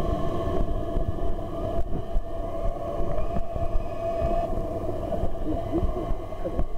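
Small electric motors of underwater scooters whining steadily, heard from underwater, over a low muffled rumble of churned water.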